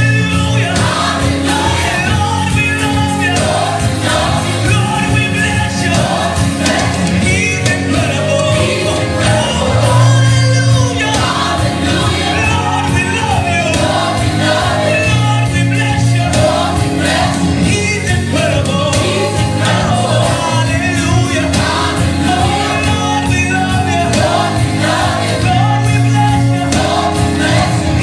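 Gospel music: a choir singing over a full band accompaniment with steady bass.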